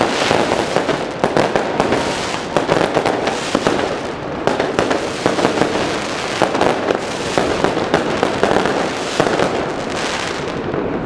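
Fireworks going off in a dense, continuous barrage of overlapping sharp pops and crackles.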